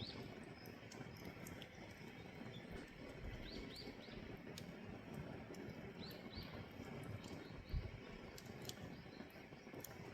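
Split firewood burning in a traditional Korean agungi firebox, a steady low rush of flame with scattered small crackles and pops, and a single dull thump about eight seconds in. Faint short high chirps come through a few times.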